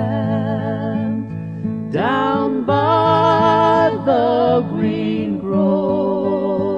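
Folk-style song introduction: acoustic guitar under a wavering melody line that slides up into its notes.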